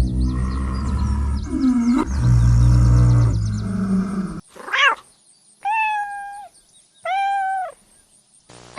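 Animal calls: a deep rumbling growl for about four seconds, then a short rising-and-falling cry and two long, even, high-pitched calls.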